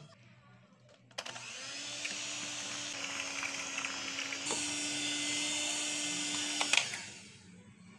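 Electric hand mixer running with its beaters in a pot of thick haleem, mashing it smooth. The motor starts about a second in, hums steadily, steps up a little in pitch midway and switches off near the end.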